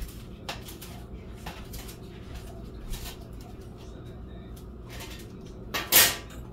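Kitchen handling sounds: scattered light clicks and rustles as a foam plate is picked up and handled, with one louder, brief rustle about six seconds in.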